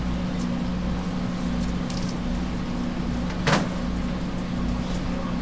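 Steady low machine hum, with a single short, sharp clack about three and a half seconds in.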